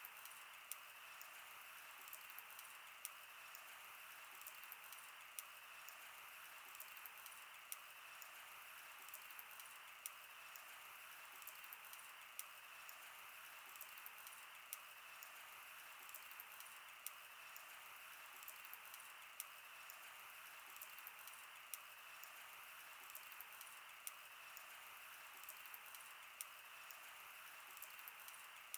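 Wood campfire burning, with a steady soft hiss and frequent, irregular sharp crackles and pops.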